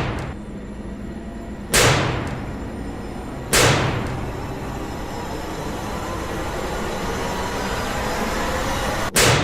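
Horror-trailer sound design: heavy booming hits, each trailing off in a whoosh, land about every two seconds, then a rising swell builds to a final hit near the end.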